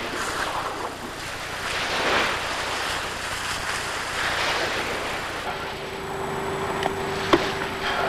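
Water splashing and surging around surfacing killer whales, swelling twice in the first half. Just past halfway a steady low hum joins, and a single sharp click comes near the end.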